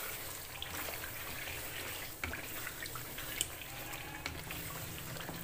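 Wooden spoon stirring chicken pieces in cream and ghee in a metal pot: wet squelching, with scattered light taps of the spoon against the pot.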